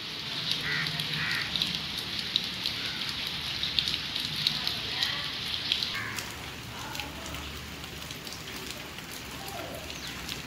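Rain falling steadily on leaves and roofs, a dense crackling patter. About six seconds in it abruptly turns to a softer patter of separate drops.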